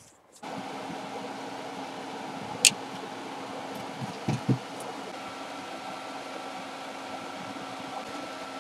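Steady electric fan noise with a low hum, starting about half a second in; a faint high whine joins about halfway. A sharp click and a couple of soft knocks from handling tools on the bench are heard in the middle.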